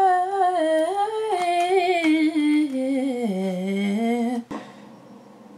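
A woman humming a tune, one voice holding notes and stepping gradually lower in pitch, breaking off abruptly about four and a half seconds in.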